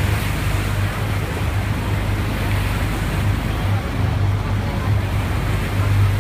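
Passenger excursion boat's engine running with a steady low drone, mixed with wind and water noise as the boat moves.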